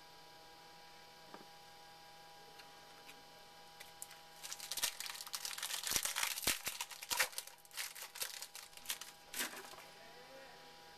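Trading-card pack wrapper being torn open and crinkled by hand: a dense run of irregular crackles and snaps that starts about four seconds in and lasts about five seconds.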